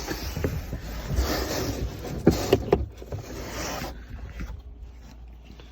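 Packaging being handled and rummaged through: rustling and scraping with a few sharp clicks, dying down after about four seconds.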